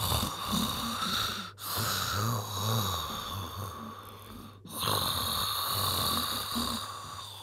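A person snoring: three long snores one after another, each with a low rattle under a breathy hiss, broken by short pauses.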